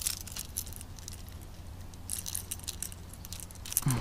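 Light metallic clicks and jingles in scattered clusters from a hard lure's treble hooks being handled while they are worked free from a small pike's jaw.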